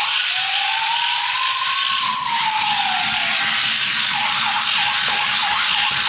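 Battery-powered toy police car playing its electronic siren through its small speaker: a slow wail that rises and then falls over about three seconds, over a steady hiss, followed by short repeated chirps.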